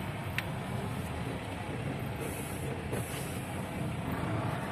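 Heavy truck's diesel engine running, heard from inside the cab as a steady low rumble while the truck rolls slowly, with a small click about half a second in.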